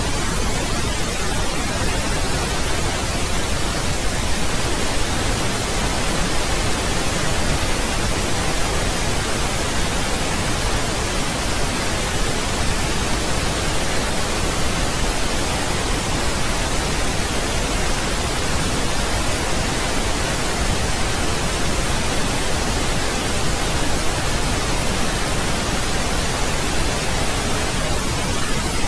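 Steady, unbroken pink noise: an even hiss that spreads across all pitches and does not change.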